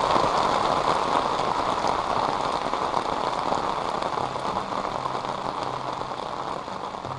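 Heavy rain falling on the river and the boat, a steady hiss that slowly fades out. Faint background music comes in about four seconds in.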